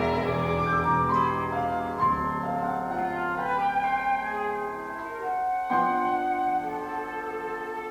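Chamber music from a quintet: piano with bowed strings, playing held notes that move to new chords every second or so, with a fresh chord struck a little before the end.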